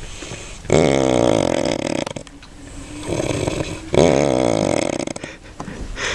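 A man snoring loudly in deep sleep: two long snores, each about a second and a half, coming about three seconds apart.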